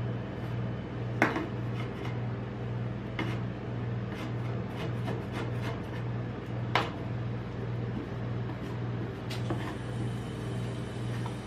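Metal spatula tapping and scraping on the steel cold plate of a rolled-ice-cream pan as it works a sheet of ice cream, with scattered sharp clicks, the loudest about a second in and again near seven seconds. Under it runs a steady low hum.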